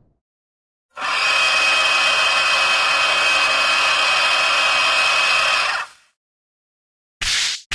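Cartoon sound effect: a loud, steady rushing hiss that starts about a second in, holds for about five seconds and cuts off sharply, followed near the end by two short bursts of noise.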